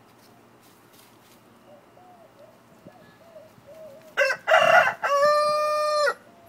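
Cochin rooster crowing: a short first note, a rough louder middle note and a long held final note, about two seconds in all, starting about four seconds in. Before it, the hens make faint low clucking sounds.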